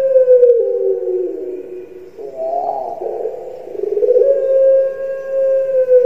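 Puter pelung (Barbary dove) cooing: long drawn-out notes that hold steady and then slide down in pitch, with a short rising-and-falling note about two seconds in. A new long note starts a little after four seconds.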